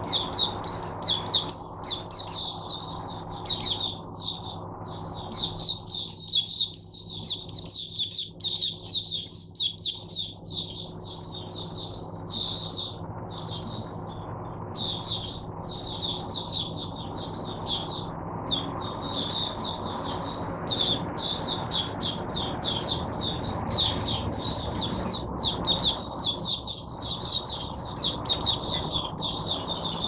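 A caged white-eye (mata puteh) singing a long, fast, twittering song of quick high notes, almost without a break, with a few short pauses.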